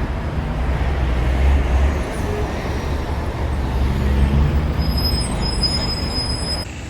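Loud, steady low rumble of a running vehicle engine, with a few short high-pitched tones near the end; it starts and stops abruptly.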